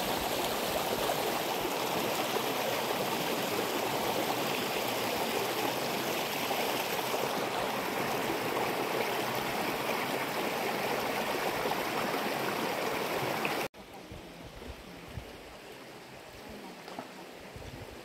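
Steady rush of a shallow mountain stream running over stones. About fourteen seconds in it cuts off abruptly to a much quieter background with a few faint low thumps.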